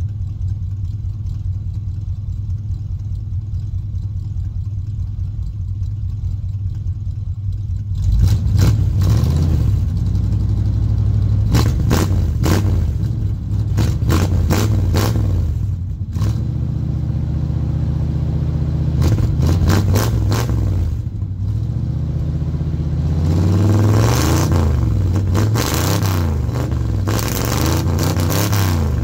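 1978 Suburban engine idling steadily at the tailpipe end, then from about eight seconds in revved repeatedly in short blips, with a run of rising and falling revs near the end.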